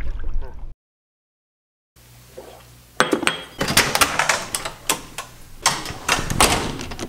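A run of sharp knocks and clinks from hard objects being handled in a small room, starting about three seconds in.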